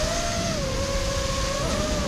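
Brushless motors and propellers of a 5-inch FPV racing quadcopter whining. The pitch rises about half a second in, holds, and wavers near the end as the throttle changes, over a low rumble.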